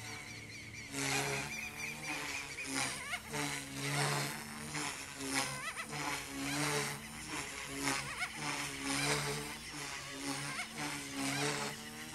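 Goosky S2 micro RC helicopter in flight, its electric motor whining and rotor blades buzzing at a flat 65% throttle setting, the sound swelling and easing in repeated pulses about once a second as the blades load and unload through manoeuvres.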